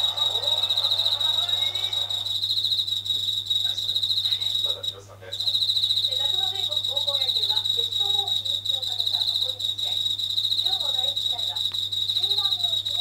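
Yabukiri katydid (Tettigonia orientalis) singing a loud, steady, rapidly pulsing buzz that breaks off briefly about five seconds in and then carries on.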